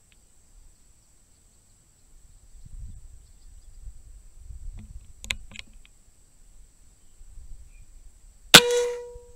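A .25-caliber Seneca Eagle Claw PCP air rifle firing one shot near the end, a sharp crack followed by a short ringing tone that dies away within a second. Before it, a few faint handling clicks and low rumbling.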